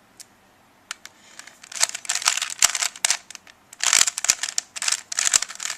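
Plastic Rubik's cube being turned quickly by hand, its layers clicking and rattling in about three rapid flurries of turns, starting about a second and a half in.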